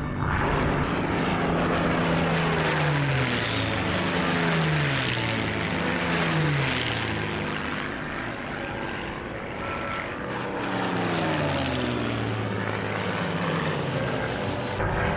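Supermarine Spitfire's Rolls-Royce Merlin V12 engine in flight. Its note drops in pitch several times as it passes by.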